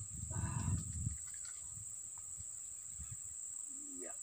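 Steady high-pitched drone of insects, with a low rumble over the first second and a short rising call near the end.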